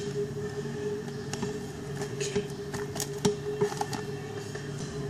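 Scissors snipping through the paper and tape wrapping of a small parcel, with the paper rustling and crackling in scattered short clicks over a steady low hum.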